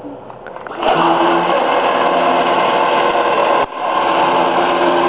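Electric drivetrain of a riding lawn mower converted to a Club Car SepEx golf-cart motor, starting up about a second in with a steady electric-motor whine and gear noise as the mower drives off. It drops out for an instant a little past halfway, then runs on.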